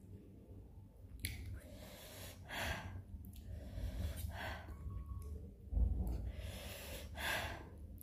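Four noisy breaths drawn and blown through the mouth, a second or two apart, from the heat of very spicy ghost pepper cup noodles being eaten. A dull low bump a little past the middle.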